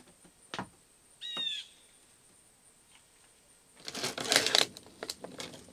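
A short bird call, a quick run of falling chirps, about a second in. Near the end comes louder rustling and handling noise in irregular bursts.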